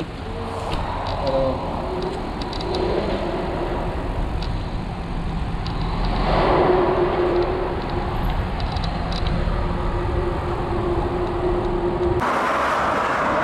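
Bicycle riding through a road tunnel: tyres rolling on asphalt and wind on the handlebar-mounted microphone, with scattered light ticks and a steady hum from about halfway through. Near the end the sound changes abruptly as the ride continues on the open road.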